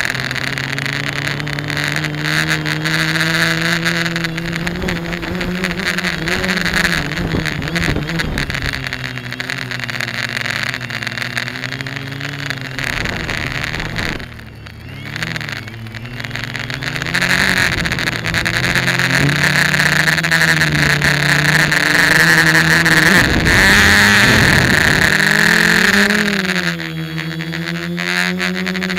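Electric motors and propellers of an F450 quadcopter buzzing, heard from its own onboard camera; the pitch rises and falls with the throttle, drops sharply about halfway through and then climbs to its loudest stretch, with wind buffeting the microphone now and then.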